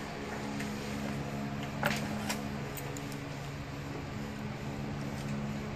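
A steady low hum in the room, with two short scratchy metallic ticks about two seconds in and a few fainter ones after, as stainless safety wire is worked through the drilled bolt heads of a brake rotor hat.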